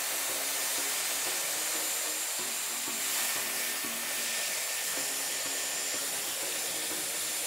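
Dyson Airwrap with its barrel attachment running steadily while it blows hot air to curl the ends of the hair under. It makes an even rush of air with a thin, high, steady motor whine.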